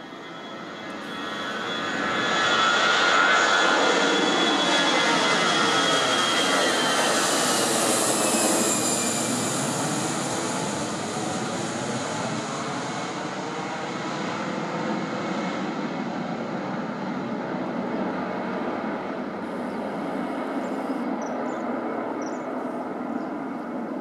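Airbus A319 airliner's jet engines at takeoff power as it lifts off and climbs out. The noise builds to its loudest about three seconds in, the engine whine slides down in pitch as the plane passes, and then a steady rumble slowly fades as it climbs away.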